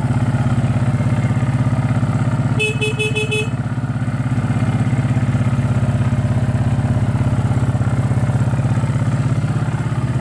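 TGB Blade 550 quad's freshly replaced engine running at a steady idle, with an even, pulsing drone. About two and a half seconds in, five quick electronic beeps sound over it.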